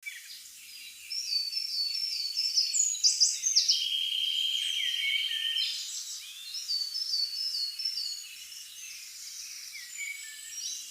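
Several songbirds singing over each other: overlapping chirps, repeated whistled phrases and a steady trill lasting about two seconds near the middle.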